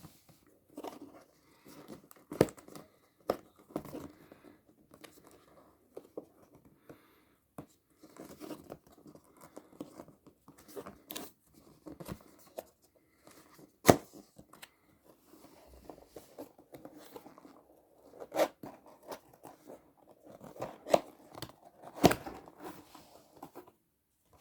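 Cardboard box being opened by hand: tearing and rustling of the packaging, crinkling, with irregular sharp knocks and clicks, the loudest about 14 and 22 seconds in.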